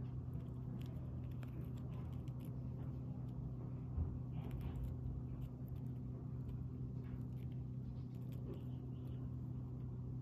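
Faint ticks and rustles of fingers handling and twisting the thin copper strands of a broken cable, over a steady low hum, with one soft thump about four seconds in.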